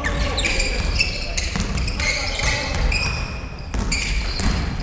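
Basketball bouncing on a wooden gymnasium floor, with the short high squeaks of players' sneakers on the boards.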